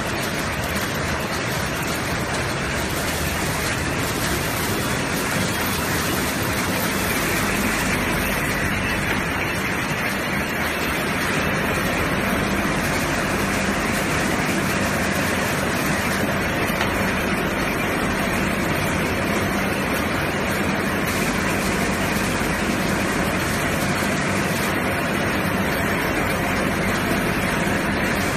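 Automatic garbage bag film-wrapping machine running: a steady, even mechanical noise with a low hum underneath.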